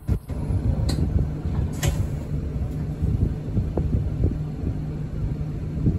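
Route bus engine running with road rumble, heard from inside the passenger cabin as the bus moves off; a steady low hum, with a couple of faint clicks about one and two seconds in.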